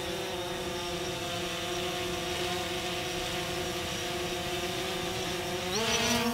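DJI Phantom 4 Pro quadcopter's propellers running with a steady whine, rising in pitch near the end.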